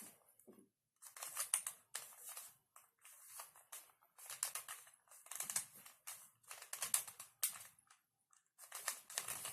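Rubik's cube layers being turned one after another, giving short runs of plastic clicking and scraping about once a second as a move sequence (algorithm) is carried out on the cube.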